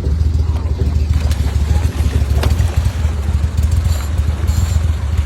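Engine running with a steady low hum.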